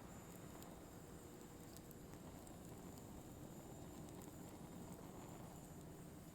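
Firewood burning with a soft, sparse crackle: scattered small snaps and pops over a low, steady hiss.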